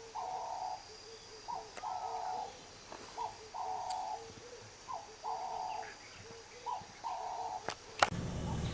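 A dove cooing a repeated phrase, a short note followed by a longer one, five times about a second and a half apart. A sharp knock near the end, then rumbling handling noise.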